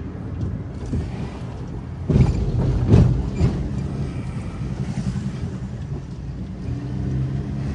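Pickup truck engine running under load on a steep uphill climb, heard from inside the cab, with road rumble and a few knocks about two to three seconds in. The engine note grows stronger near the end.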